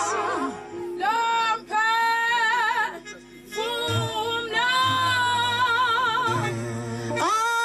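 A woman singing an isiNdebele gospel song solo, with wide vibrato on long held notes, in phrases broken by short pauses.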